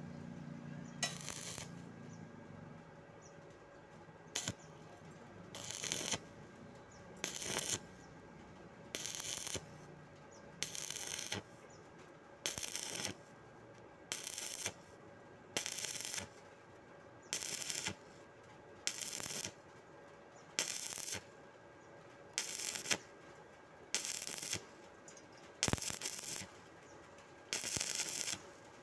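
Stick-welding arc on steel plate, struck and broken over and over: short crackling bursts about half a second long, roughly every 1.7 seconds, laying the weld a little at a time.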